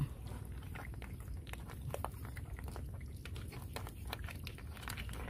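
Freshwater apple snail shells clicking and knocking together as they are picked up by hand out of shallow muddy water, with many short, irregular clicks.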